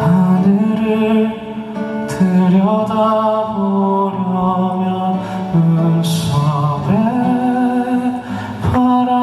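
Live band music: a male voice singing long, slow held notes with a wavering vibrato over keyboard, bass and drums.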